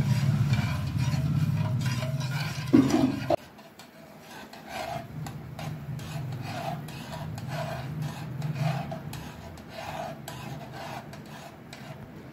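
A steel spoon scraping and stirring sugar and water against the bottom of an aluminium saucepan while the sugar dissolves for a sugar syrup, in repeated rasping strokes about every two-thirds of a second. A steady low hum in the first three seconds or so cuts off suddenly.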